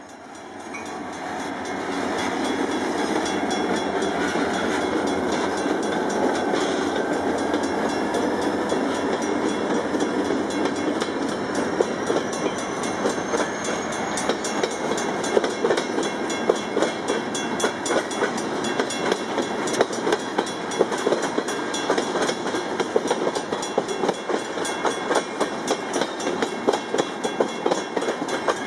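Diesel-hauled freight train passing close by at slow speed. The locomotives' engines swell over the first couple of seconds. Then the freight cars roll past with a steady rumble and a run of wheel clicks on the track.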